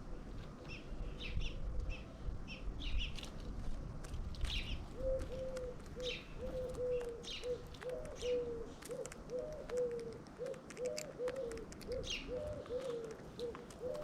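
Small birds chirping throughout, joined about five seconds in by a pigeon cooing in a steady run of low, repeated notes.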